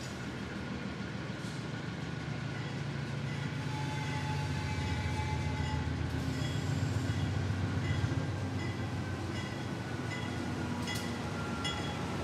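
Diesel freight locomotive approaching with its engine rumbling low and steady, growing louder as it nears.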